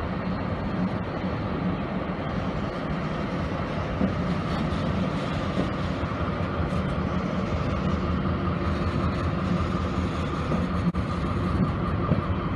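Freight train rolling past: a SNCF BB 75000-class diesel-electric locomotive followed by a long string of grain hopper wagons, a steady rumble of engine and wheels on the rails.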